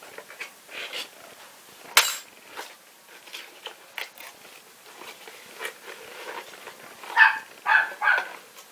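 Cardboard box being opened and handled, with scattered scrapes and rustles and one sharp click about two seconds in. Near the end a dog barks three times in quick succession.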